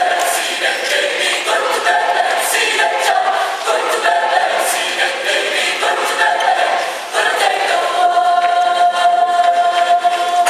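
Mixed choir singing a church song in parts. About seven seconds in, the voices settle on one long held chord.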